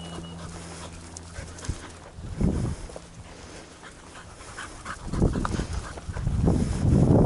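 Springer spaniel panting close by, with a loud rush of wind on the microphone building near the end.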